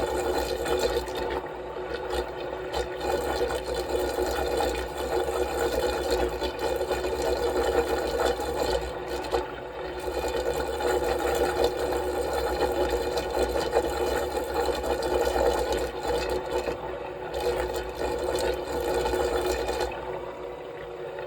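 Magnetic stirrer motor running at high speed, a steady whirring hum, with water churning in the whirlpool it spins up.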